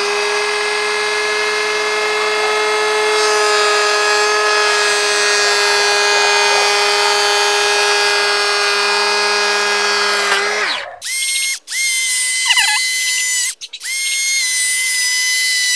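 Milwaukee M12 brushless 2-inch cordless planer spinning up to a steady high whine while planing a shallow rabbet along a board edge, then winding down after about ten seconds. It then runs again in two shorter, thinner-sounding stretches with brief stops between.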